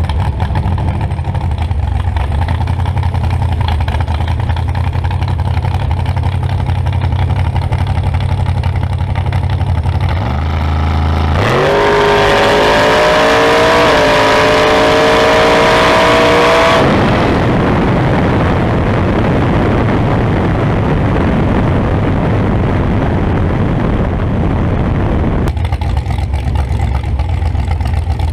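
Drag race car's engine idling, then launching at full throttle about eleven seconds in, its pitch climbing, dipping once at a gear change and climbing again before the throttle is lifted about five seconds later. Wind and road rush follow on the car-mounted camera while the car coasts, and the engine settles back to a steady idle near the end.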